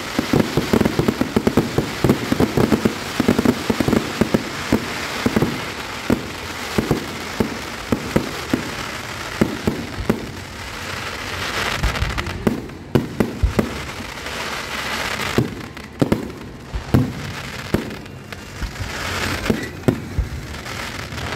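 Aerial fireworks going off: a rapid run of bangs from shell bursts and crackling stars in the first several seconds, then more spaced bangs, with stretches of crackling hiss in the middle and near the end.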